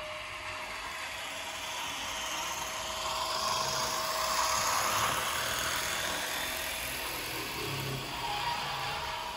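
Märklin H0 Krokodil model locomotive, converted to an ESU permanent-magnet motor, running along the track with a mechanical whir of motor, gears and wheels. It grows loudest about four to five seconds in as it passes close, then fades as it moves away.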